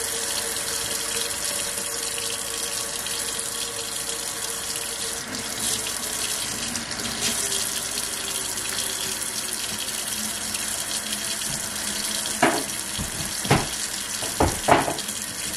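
Kitchen faucet running at full flow into a stainless steel sink basin, filling it with water: a steady rushing splash. Three brief knocks stand out near the end.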